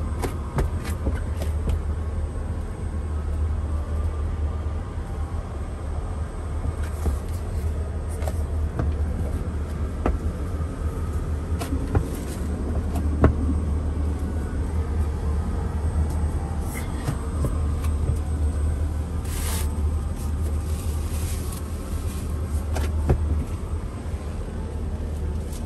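Steady low rumble of a Boeing 777's cabin noise, heard inside the aircraft lavatory. Scattered clicks and knocks sound over it, and there is a brief hiss about three quarters through.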